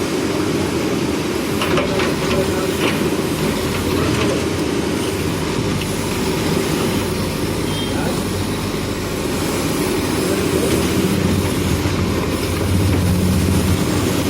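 Diesel engine of a JCB backhoe loader running steadily under working load, with a few light knocks about two seconds in; the engine gets louder about twelve seconds in.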